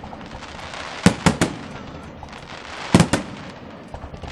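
Aerial fireworks shells bursting: a quick group of three sharp bangs about a second in, then another group of about three around three seconds in, with steady background noise between them.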